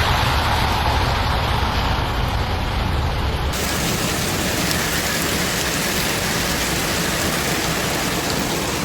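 Heavy rain pouring steadily. A low rumble under it stops abruptly about three and a half seconds in, leaving a brighter, hissing downpour.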